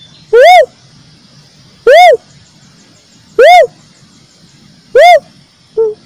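Cuckoo-dove (uncal) calling: a loud single whooping note that rises and falls in pitch, repeated four times about every one and a half seconds, with a short lower note near the end.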